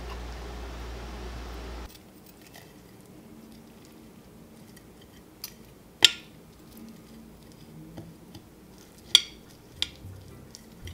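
Spoon and chopsticks clinking against a plate while picking grilled ribbon fish off the bone: a few sharp clinks, the loudest about six seconds in and two more near the end. A low steady hum cuts off about two seconds in.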